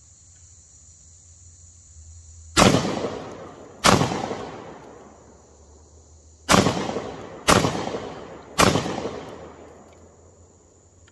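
Five shots from a GForce Arms GF99 12-gauge semi-automatic shotgun firing 2¾-inch high-velocity shells, at uneven intervals, each ringing off for about a second. The action cycles on every round.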